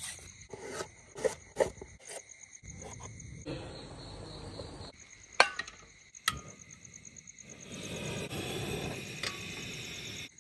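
Crickets chirping in a steady fast pulse, with cooking sounds over them: a few light knife and utensil clicks, one sharp clink about five seconds in, and a stretch of hissing near the end from the camping stove and pan.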